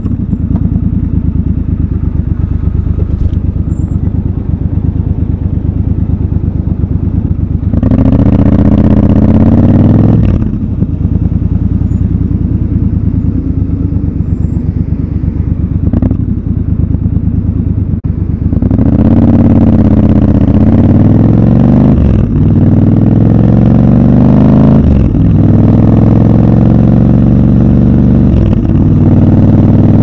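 Triumph Scrambler 1200 XC's 1200 cc parallel-twin engine, close-miked and unsilenced by narration: running low and steady with a short burst of throttle about a third of the way in, then pulling away hard about two-thirds in, its pitch rising in several sweeps with brief dips as it shifts up through the gears.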